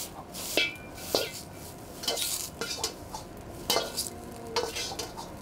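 Metal ladle scraping and knocking against a wok as the finished fried rice is gathered up, about ten strokes, one with a short metallic ring, over a light sizzle of hot oil.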